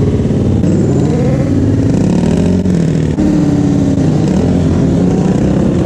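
Several motorcycle engines running and revving at once, loud and continuous, their pitches rising and falling over one another.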